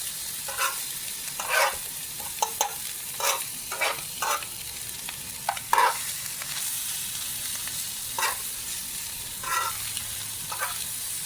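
Fried rice with shrimp sizzling in a hot skillet, a steady hiss, while a utensil scrapes and taps against the pan at irregular intervals as it is stirred.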